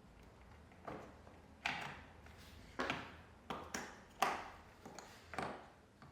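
About six light clicks and knocks, roughly one a second, of metal and plastic parts being handled at a dishwasher's door hinge, as the hinge spring is seated.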